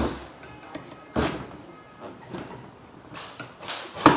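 Lever-operated stainless-steel coconut cutter chopping into a green tender coconut: a series of thuds and metal clunks as the blade is pressed through the husk, the sharpest clunk near the end.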